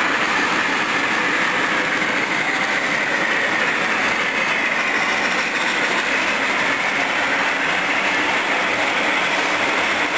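O-gauge hi-rail model trains running on the layout: a steady rolling noise of motors and wheels on track, with no distinct clicks or whistle.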